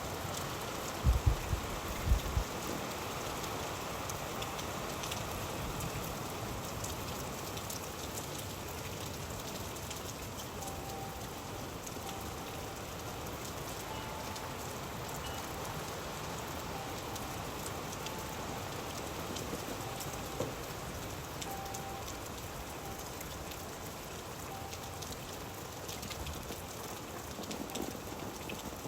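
Steady rain falling and pattering on surfaces, with a few short low thuds about a second in.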